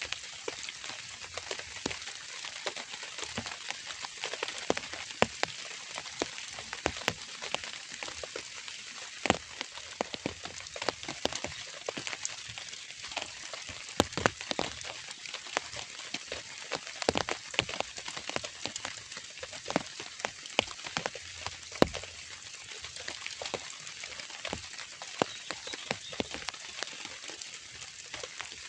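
Rain falling: a steady hiss with many individual drops striking sharply at irregular moments.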